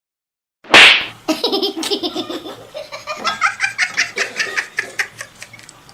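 A sudden loud noise just before a second in, then a person laughing hard in a long quick string of ha-ha sounds.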